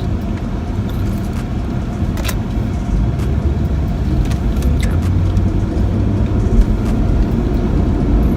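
Car driving, heard from inside the cabin: a steady low rumble of road and engine noise, with a few light clicks and rattles.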